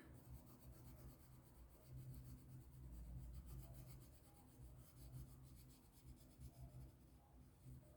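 Faint rubbing of an oil pastel stroked back and forth over paper, colouring in.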